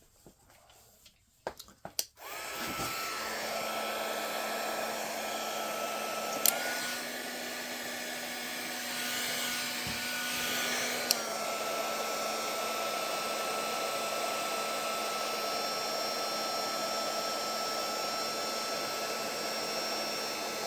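Electric heat gun switched on about two seconds in, its fan blowing hot air steadily to shrink heat-shrink tubing over a wire joint, with a fan whine. A click about six seconds in lifts the whine slightly, and another click about eleven seconds in drops it back.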